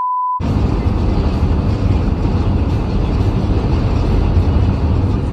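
A short electronic test-tone beep under colour bars, then steady loud road and engine rumble inside a moving truck's cab while driving, which cuts off abruptly at the end.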